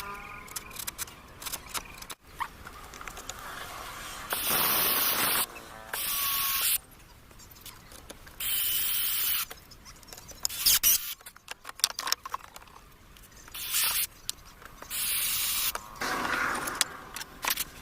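Several short bursts of hissing spray, each about a second long, with small clicks and knocks in between.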